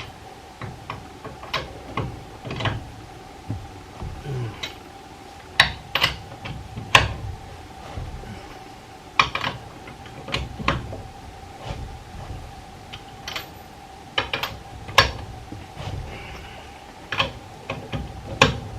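Irregular metallic clicks, clinks and knocks of metal pieces being handled, spaced unevenly with a few louder knocks, over a steady faint hum.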